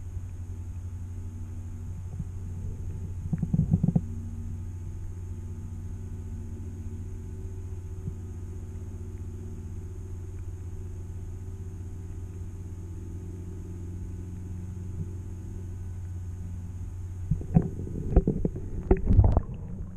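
Muffled low rumble of lake water moving around an action camera held underwater in its waterproof housing, with a faint steady high whine. A short cluster of knocks and bumps comes a few seconds in, and more near the end.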